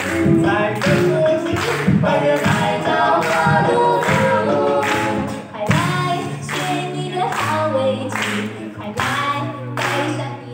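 Music with voices singing together.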